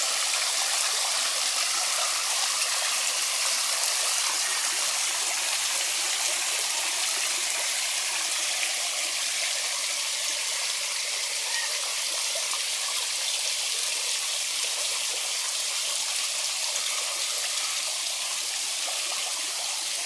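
Backyard pond waterfall and rock stream running steadily, with water spilling over a flat stone lip and down the stacked rocks.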